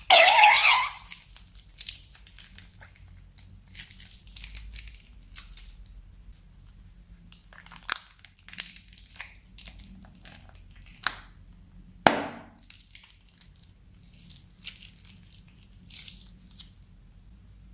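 Slime-filled plastic bags crinkling and rustling as they are handled and squeezed out, with scattered soft crackles. There is a loud crinkling burst right at the start and sharp snaps about eight and twelve seconds in.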